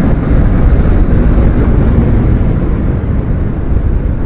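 Motorcycle riding noise: wind buffeting the rider's microphone over a steady low rumble of engine and road.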